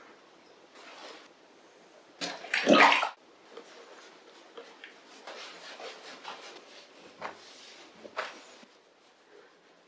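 Noises of bathing and towel-drying a wet cat: water sloshing and towel rustling, irregular and uneven, with one loud burst a little over two seconds in.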